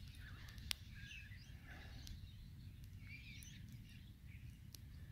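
Faint background with a steady low rumble and scattered bird chirps, and one sharp click just under a second in.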